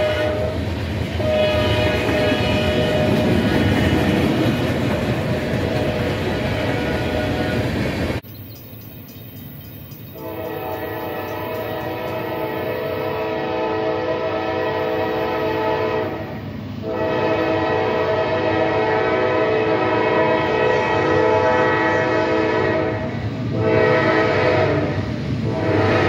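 Freight locomotive horns over the rumble of a passing train. The first horn breaks briefly about a second in. After a cut about eight seconds in, an approaching locomotive's horn blows two long blasts, a short one and another long one, the grade-crossing signal.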